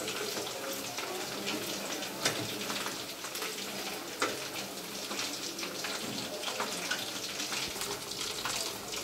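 Chicken 65 pieces deep-frying in hot oil in a metal kadai: a steady sizzle full of small crackles, with sharper pops about two and four seconds in.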